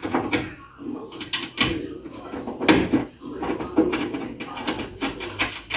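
Irregular clicks and metallic knocks of a manual window regulator being handled and fitted into the sheet-metal inner panel of a Volkswagen Gol G2 front door.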